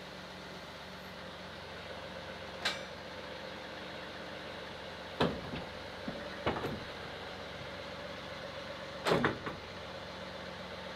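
A John Deere loader's diesel engine running steadily, with four sharp metal clanks and knocks spread through it, the loudest near the end, as the green loader frame moves in among the attachment shelves.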